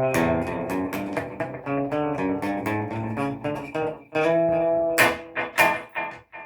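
Raven Telecaster-style electric guitar, a 1970s Japanese-made clone, played as a run of single picked notes, with a few sharp strummed attacks near the end. It plays cleanly, with no fret buzz.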